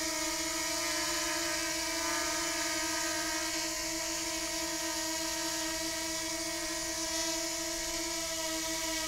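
DJI Mini 2 quadcopter drone hovering, its propellers making a steady buzzing whine.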